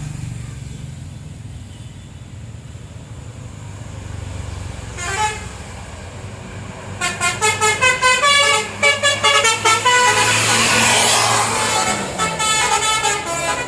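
Tour bus diesel engine running, then a short horn toot about five seconds in, followed by a telolet basuri multi-tone musical bus horn playing a quick tune of short, changing notes from about seven seconds on, with a rushing noise under it in the middle.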